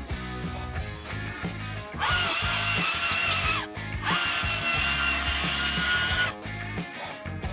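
Cordless electric power tool run in two trigger bursts of about two seconds each, its motor whining up to speed and winding back down, over background music.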